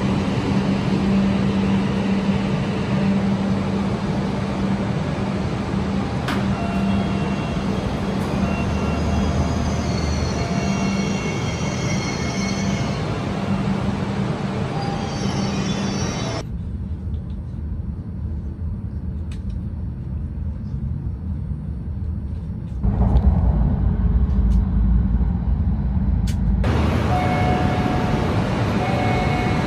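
Hokkaido Shinkansen train running: a steady rumble with a constant low hum. The sound changes abruptly a little over halfway through, and a deeper, louder rumble comes in a few seconds later.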